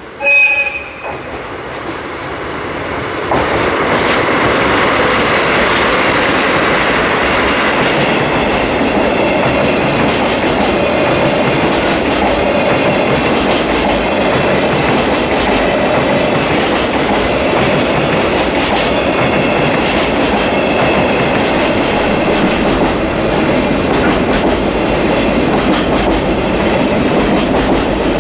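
A short horn blast from a JR DD51 diesel-hydraulic locomotive, then the double-headed pair of DD51s runs past, loudest from about three seconds in. A long string of flat wagons carrying long rails follows, its wheels clicking steadily over the rail joints.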